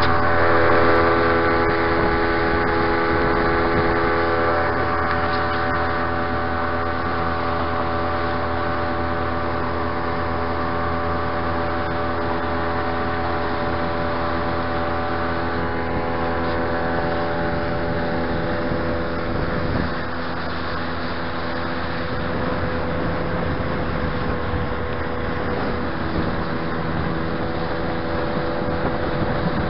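Tohatsu outboard motor running steadily at speed, an even hum with several held tones.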